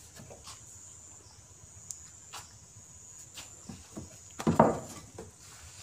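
A calf's hooves shuffling and knocking on loose wooden planks and straw, with one louder scuffing thump about four and a half seconds in, over an insect's steady high trill.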